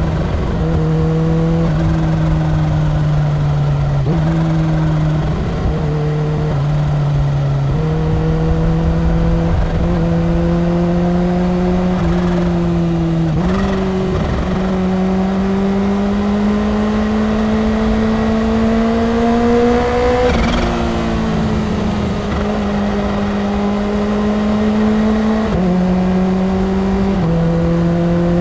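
Supercharged inline-four engine of a 2015 Kawasaki Ninja H2 running at highway speed, holding a steady pitch with several small steps up and down as the throttle and gears change. About halfway through the pitch climbs slowly for several seconds under acceleration, then drops back. A low rush of wind runs under it.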